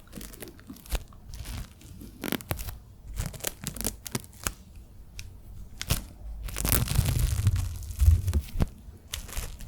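Wet ASMR mouth sounds close to the microphone: irregular clicks, smacks and crackles, growing denser and louder with a low rumble for a couple of seconds near the end.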